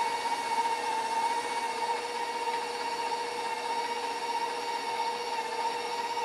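Bowl-lift KitchenAid stand mixer running steadily, its beater mixing pastry dough, with a steady motor whine.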